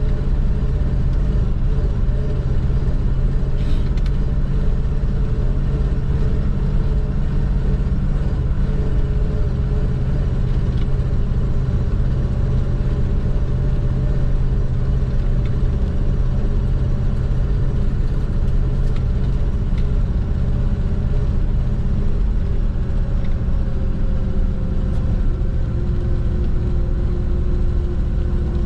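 1987 Chevy truck's engine running steadily on the road at cruising speed, with a continuous low rumble; its note eases slightly lower in the last few seconds.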